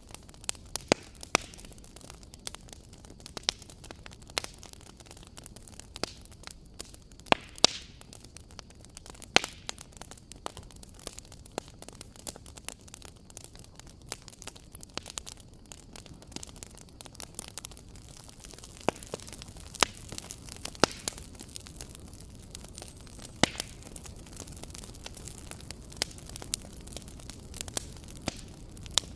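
Wood fire crackling in a fireplace: irregular sharp pops and snaps over a soft steady hiss, with a few louder cracks.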